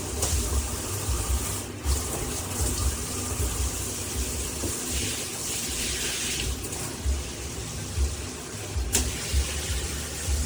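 Handheld shower head spraying water into a bathtub: a steady hiss that grows louder for about two seconds midway, with a single sharp click near the end.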